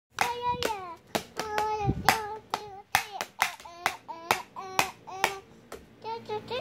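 A small child beating a plastic toy drum with a pair of sticks, with sharp, uneven taps about three a second, while singing along in a high voice.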